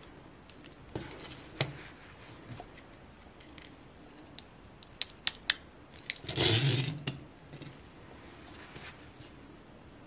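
Plastic dolls being handled on a tabletop: scattered light clicks and taps, a quick run of sharp clicks about five seconds in, and a louder rustle of handling about six and a half seconds in.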